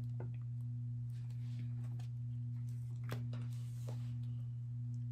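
A steady low electrical hum, with soft scattered taps and rustles of Pokémon trading cards being handled and shuffled in the hand, and a longer sliding rustle of cards a little past halfway.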